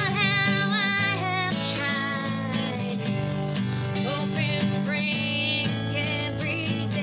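A woman singing over a strummed Crafter acoustic guitar, her voice rising and wavering with vibrato on held notes.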